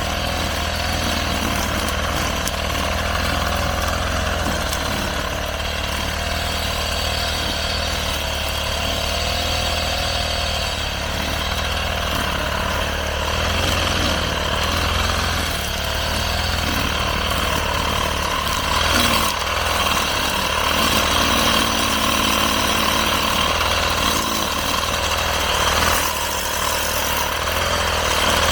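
Petrol brush cutter running steadily as it cuts grass, its engine note wavering slightly up and down.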